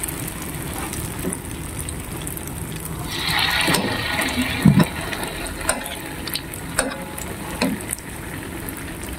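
Battered champadak pieces deep-frying in oil in a wok: a steady sizzle that grows louder for about a second and a half from about three seconds in, with a few light taps.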